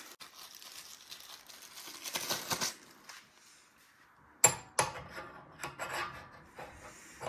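Parts of a meat grinder being handled and fitted together: a scraping rustle about two seconds in, then a series of sharp clicks and knocks from about four and a half seconds on.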